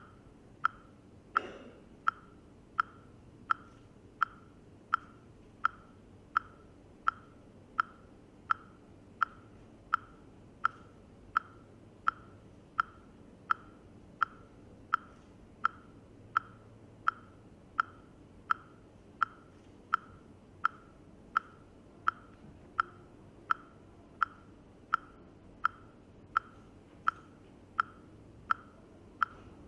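A steady metronome-like ticking, about three short pitched ticks every two seconds, keeping time for the dancers' movement. A brief higher sound cuts in about a second and a half in.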